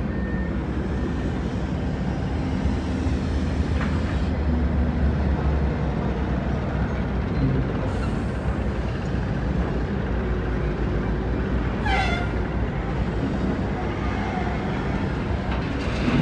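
Heavy diesel machinery working at a shale pit: the engines of dump trucks and a loading excavator run with a steady low rumble. About twelve seconds in there is a brief squeal that falls in pitch.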